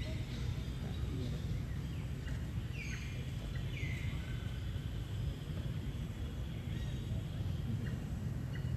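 Outdoor background noise with a steady low rumble, and a few short, high chirps falling in pitch about three and four seconds in.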